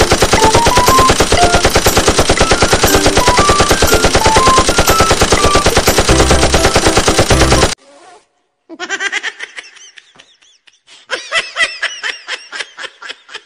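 Machine-gun fire sound effect, a long unbroken run of rapid shots with a short tune of stepped notes over it, stopping abruptly about eight seconds in. After a brief pause, excited human voices follow.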